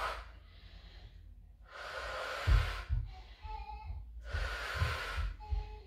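A woman's exercise breathing: long, audible breaths repeating about every two and a half seconds as she works through arm raises. A few low thumps come during the middle breaths, the loudest about two and a half seconds in.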